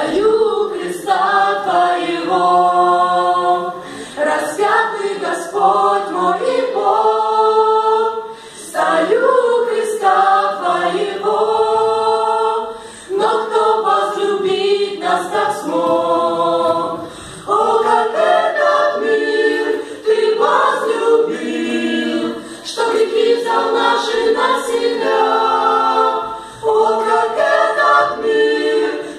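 Small choir singing a cappella in several harmonised parts, in sung phrases of about four seconds each with short breaks between them.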